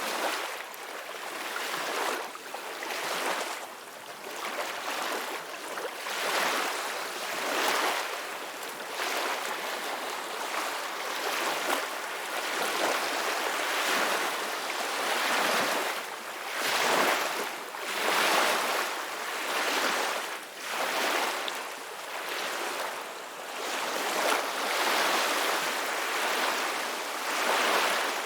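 Ocean waves washing in and breaking, a steady hiss of surf that swells and ebbs every second or two.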